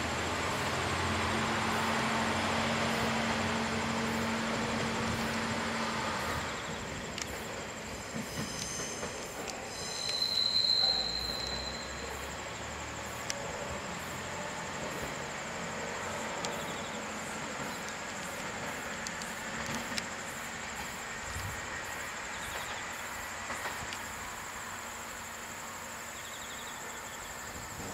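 Chizu Express HOT3500-series diesel railcar running slowly through curves and points. Its engine hum is steady for the first six seconds, then its wheels squeal briefly and high-pitched about ten seconds in, followed by a quieter rumble with scattered clicks of the wheels over the track.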